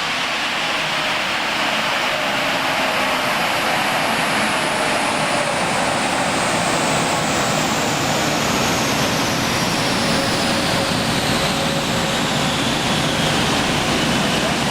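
FPV BFII Super Pursuit on a chassis dynamometer winding down after a pull: a loud, steady rush with a faint whine slowly falling in pitch.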